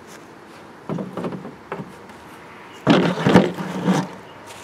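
Handling noise: scrapes and knocks of a white plastic bucket and its PVC drain elbow being moved and fitted, in two short bouts, the louder one about three seconds in.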